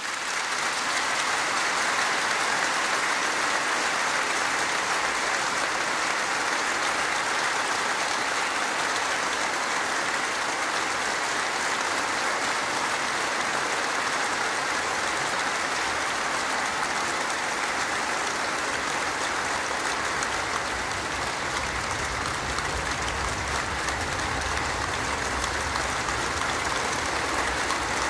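A large concert-hall audience applauding in a standing ovation: dense, steady clapping that breaks out right after the music ends and keeps going without letting up, with a low rumble joining about two-thirds of the way through.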